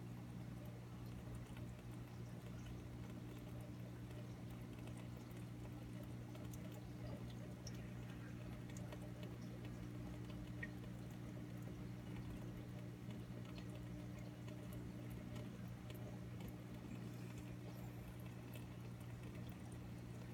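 Faint steady low hum of running aquarium equipment, with a light trickle of water and scattered soft ticks.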